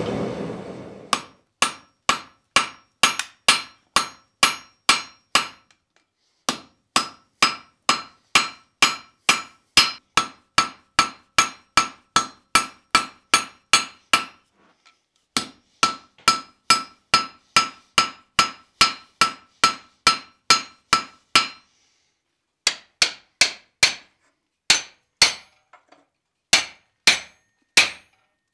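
Hand hammer striking a red-hot railroad spike on a steel anvil in steady blows about two a second, each with a bright anvil ring, in runs broken by short pauses. Near the end the blows go on without the ringing tone.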